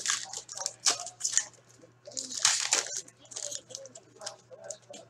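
A foil hockey-card pack wrapper being torn open and crinkled by hand, in irregular crackling bursts, loudest in the first second and a half and again around the middle.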